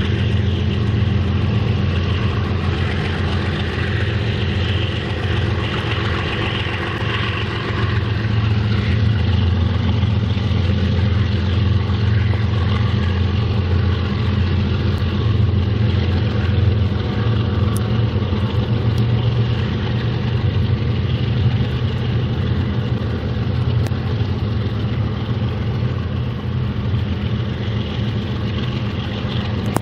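Diesel-electric freight locomotive engines running steadily, a low, even drone with a broad rumble of noise above it.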